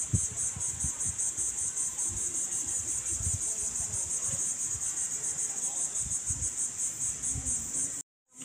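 A steady, high-pitched chorus of chirring insects with a fast even pulse, over low irregular thumps and rumbles in the first few seconds. It cuts off suddenly near the end.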